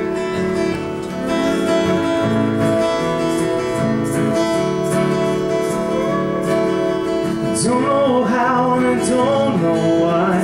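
Two acoustic guitars played live, strumming and picking a song's opening. A man's voice starts singing over them about eight seconds in.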